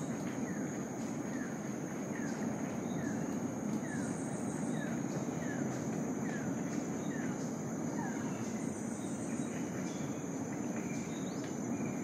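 Tropical rainforest insect chorus: a steady high-pitched drone, with a short higher buzz about every three to four seconds. A run of short falling chirps, about two a second, goes on for the first eight seconds, all over a steady low rush.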